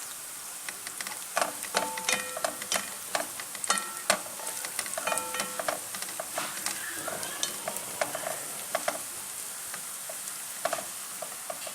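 Tomato paste frying with sliced onion and garlic in a metal pan, with a steady sizzle, while a spoon stirs and scrapes it, knocking on the pan many times with short metallic rings.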